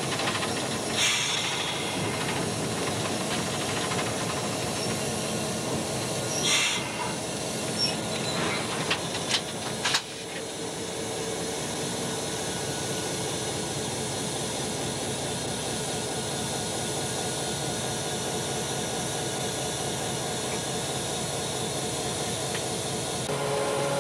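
Diesel locomotive running as the train rolls along the track, heard from the outside walkway beside the engine hood. Short bursts of hiss come about a second in and again near seven seconds. A few sharp clicks come around nine to ten seconds, and after them the running goes on steadier and a little quieter, with a faint hum.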